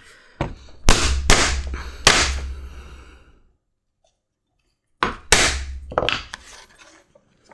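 Mallet blows driving a leather punch through a strap on a hard surface: about four sharp strikes in quick succession, a pause, then about four more.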